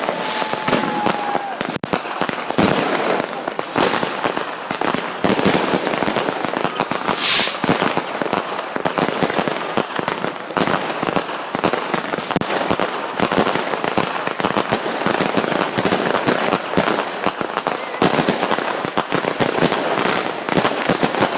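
Consumer fireworks batteries (multi-shot cakes) firing a New Year's finale: a dense, unbroken barrage of rapid cracks and bangs, with one louder hiss about seven seconds in.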